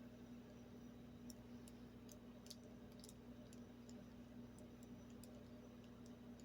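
Near silence: room tone with a steady low hum and faint, scattered small clicks.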